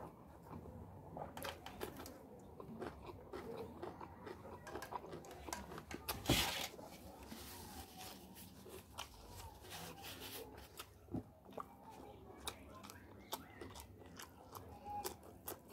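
Close-up eating sounds of a person eating rice and roast chicken by hand: steady chewing with many small wet clicks and mouth noises. A louder bite or crunch comes about six seconds in.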